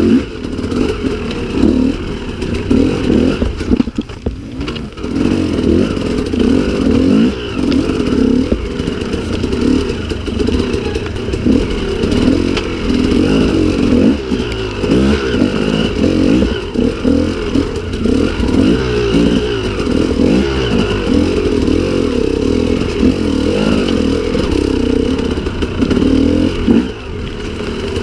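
Two-stroke KTM EXC enduro motorcycle engine revving up and down while riding a rocky trail, with clattering over the rocks. The throttle drops off briefly about four seconds in.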